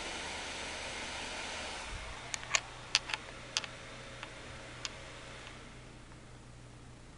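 Desktop PC's cooling fans blowing with a steady hiss that drops in level about two seconds in and falls further near the end. Around six sharp clicks come in between.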